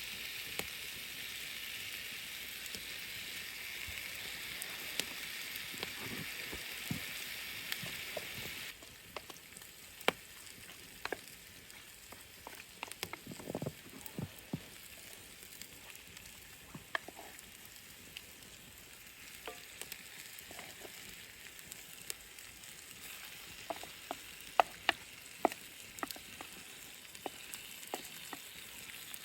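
Food sizzling and frying in a cast iron skillet over an open fire, with sharp clicks and taps of a utensil against the pan. The sizzle is loud at first and drops away abruptly about nine seconds in, and a cluster of louder clicks comes near the end.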